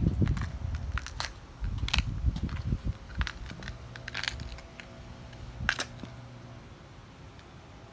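Handling noise from a handheld recording phone moved around a bicycle: irregular low rumbles with scattered sharp clicks and crackles, quieter over the last couple of seconds.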